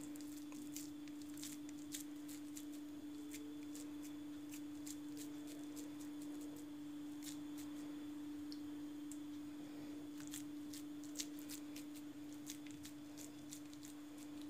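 Faint squishing and small clicks of wet hands pressing minced meat and tail fat along a flat kebab skewer, over a steady low hum.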